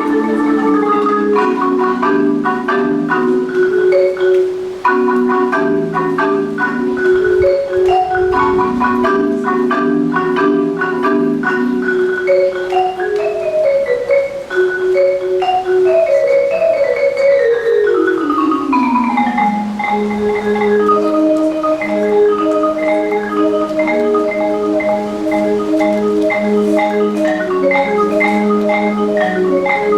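Marimba playing with mallets: held rolled notes and chords, a long falling run of notes past the middle, then repeated rolled chords.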